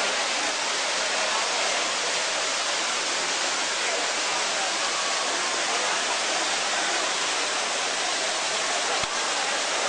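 Water of the Trevi Fountain pouring over its stone rock cascades into the basin: a steady, even rush.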